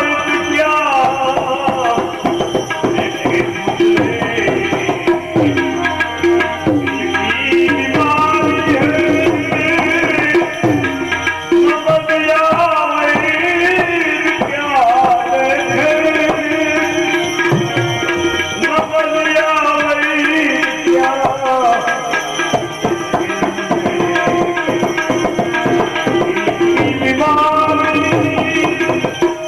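Devotional bhajan music: tabla playing a steady rhythm under a gliding melody line over a held low note.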